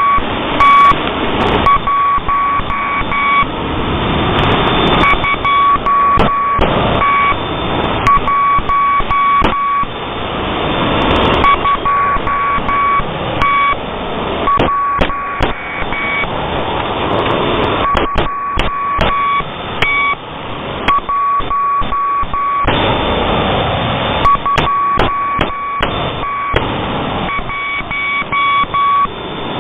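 Morse code received on a shortwave radio: a steady high beep keyed on and off in short and long marks over loud hissing static with crackles. It sounds thin, like a radio receiver.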